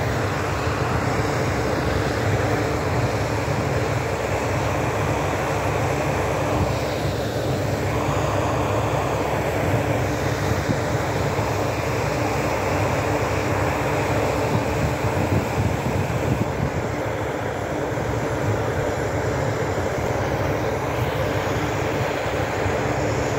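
Steady rushing roar of water and air blasting in a tall jet out of a freshly drilled water well, with the drilling rig's engine running steadily underneath.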